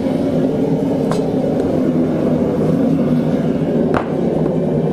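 Forge running with a steady low rumble, with two sharp metallic clicks, one about a second in and one near the end.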